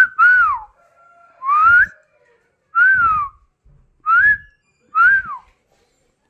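Shih Tzu whining: a series of six high, sliding whimpers, each rising and then falling in pitch, about one a second.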